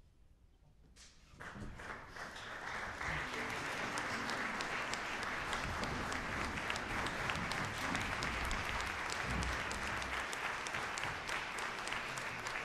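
Audience applauding: a moment of quiet, then many hands clapping start about a second in, build quickly and keep up a steady, dense applause.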